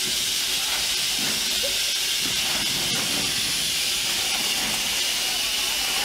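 Steam locomotive venting steam with a steady, even hiss.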